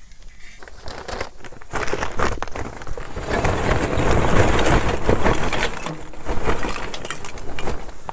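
Royal Oak hardwood lump charcoal poured from its paper bag, the chunks clattering and tumbling into the empty firebox of a Char-Griller Akorn kamado grill while the bag rustles. The pour starts about two seconds in and is loudest from about three seconds on.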